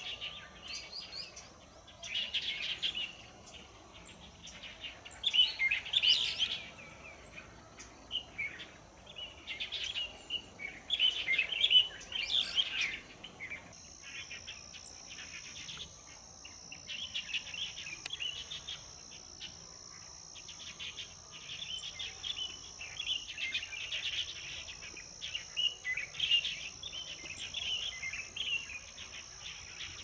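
A flock of light-vented bulbuls calling, a lively, overlapping chatter of short chirps coming in louder clusters. About halfway through a steady high-pitched buzz starts up behind the calls.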